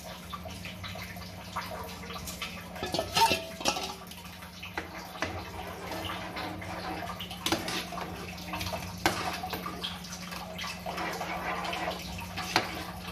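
Jaggery syrup poured into thick, hot moong dal payasam, then stirred with a ladle in a metal pan: wet sloshing and stirring with several sharp clinks of the ladle against the pan, over a steady low hum.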